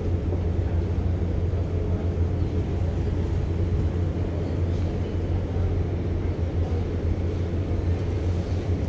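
Cruise ship's machinery running, a steady low rumble, as the ship casts off from the pier.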